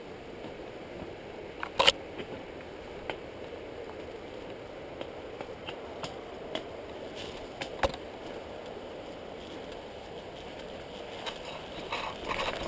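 Movement along a dirt and rocky forest trail: a steady rustling hiss with scattered sharp clicks and knocks from footsteps and handling. The loudest knock comes about two seconds in, another near eight seconds, and a small cluster near the end.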